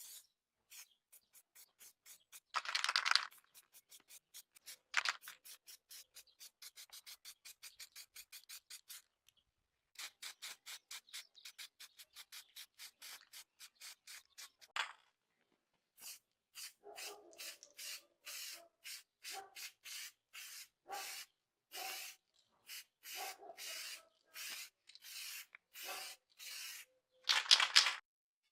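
Hand rubbing strokes against a rusted scale part, sanding or scrubbing, in quick back-and-forth runs of about four to five strokes a second, then slower strokes with a faint squeak. A few short, louder noisy bursts come about three seconds in and near the end.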